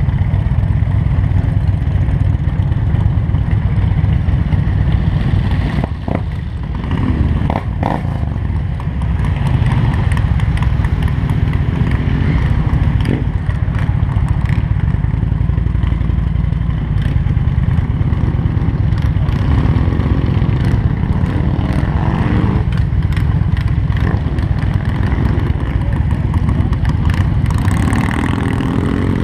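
Motorcycle engines running at low speed, a loud, steady low rumble, as a group of bikes rides off slowly together; it dips briefly about six seconds in.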